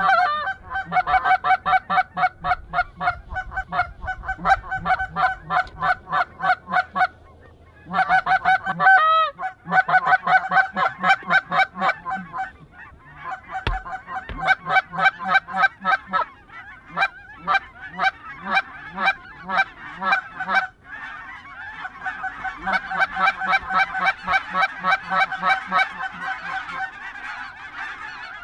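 Goose honks in fast, even runs of about four or five a second, broken by a few short pauses.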